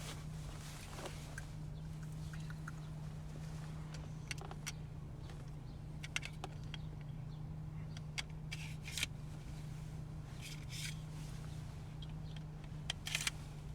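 Scattered clicks and short scrapes of a Glock 44 pistol's parts being handled and pushed together during reassembly, with a cluster of clicks and rattles near the end, over a steady low hum.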